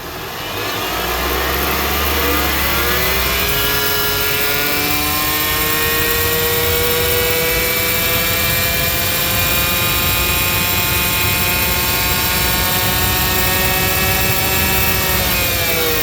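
2019 Toyota C-HR's engine and transmission under throttle. The pitch climbs over a few seconds, holds steady at high revs for about eleven seconds, then drops away near the end. The transmission is said to be bad.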